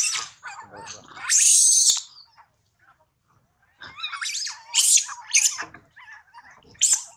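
Baby long-tailed macaques crying and screaming in shrill bursts: a loud harsh scream about a second and a half in, a run of cries from about four to six seconds, and one more near the end.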